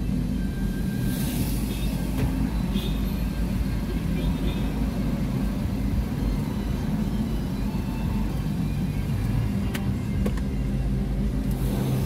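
Steady low rumble of a car's engine and tyres heard from inside the cabin while crawling in slow traffic, with a brief hiss about a second in and again near the end.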